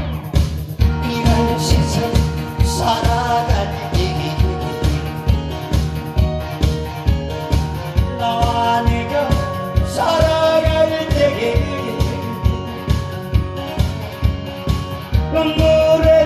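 Korean trot song over an amplified backing track with a steady, evenly spaced beat, and a man singing it live into a microphone in phrases that come and go.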